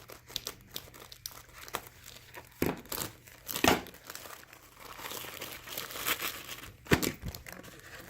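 Crinkly plastic and paper packaging being handled and torn open, with irregular rustles and crackles and a few louder snaps, the loudest about three and a half seconds in and again near the end.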